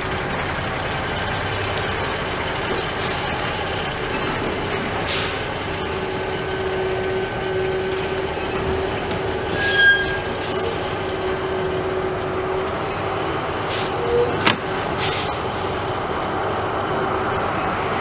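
Truck engine running steadily while hauling the boat hull out of the shed, with several short hisses and a sharp knock about two-thirds of the way through.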